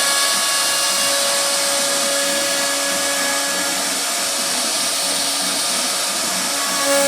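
CNC router spindle running while carving a wooden door panel: a steady high whine over a loud hiss, swelling slightly near the end.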